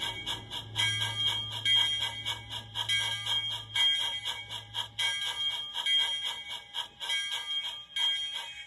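A bell ringing rapidly and steadily, about four strikes a second, with a low hum underneath that stops about four seconds in.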